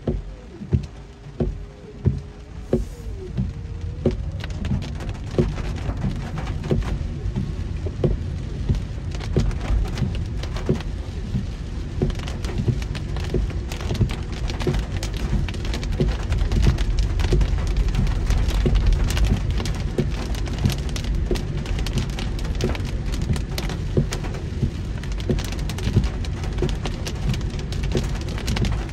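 Heavy rain falling on a car while it is driven, with a low rumble underneath. For the first few seconds separate heavy drops knock at a slow, even rate; about four seconds in the rain thickens into a dense, steady downpour.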